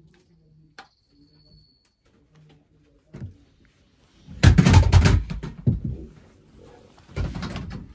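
A single click about a second in, then two loud bursts of rough rustling noise: the first about a second and a half long, the second shorter near the end.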